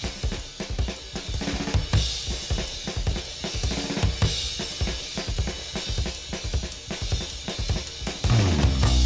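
Rock soundtrack music led by a drum kit playing a busy pattern on bass drum, snare and cymbals. Near the end the music thickens and grows louder as bass and guitar come in.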